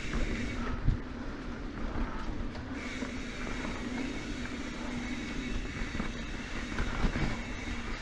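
Santa Cruz Hightower C carbon full-suspension mountain bike rolling fast along a dirt singletrack: a continuous rumble of tyres and rattling parts, with a steady whine through it. A sharp knock comes about a second in, and another near the end.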